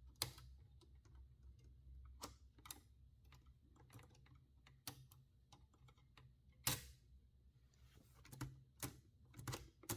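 Hammond Multiplex typewriter's levers and carriage mechanism being worked by hand: faint, irregular mechanical clicks, about nine in all, the loudest about two-thirds of the way through.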